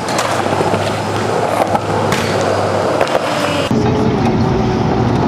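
Skateboard wheels rolling on smooth concrete, with a few sharp clacks of the board. About three and a half seconds in, this cuts suddenly to the steady low noise of a car driving.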